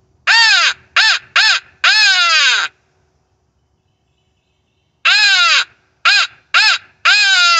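Hand-blown mouth crow call giving two series of four loud caws, each caw falling in pitch and the last of each series drawn out longer. The second series starts about five seconds in.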